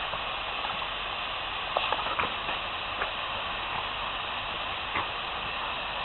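A steady hiss with a few light clicks, around two, three and five seconds in.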